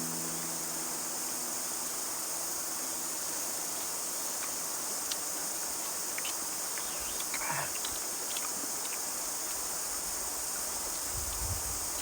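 Steady high-pitched chorus of insects, with a few faint clicks in the middle and some soft low thuds near the end.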